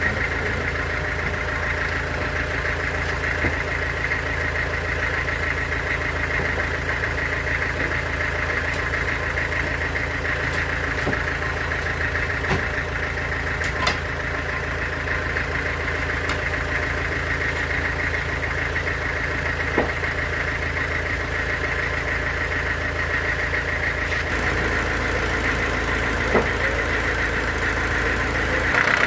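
Sawmill bandsaw running steadily, a low machine drone under a higher whine, with a few faint sharp ticks. The low drone shifts about 24 seconds in.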